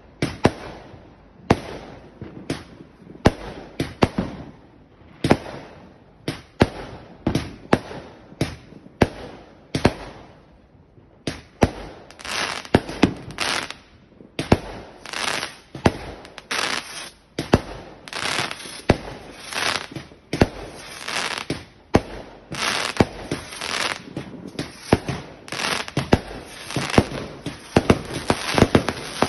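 Fireworks going off: a series of sharp bangs from bursting aerial shots, spaced out at first, then coming thick and fast after about 12 s with crackling between the bangs, which turns into continuous crackling near the end.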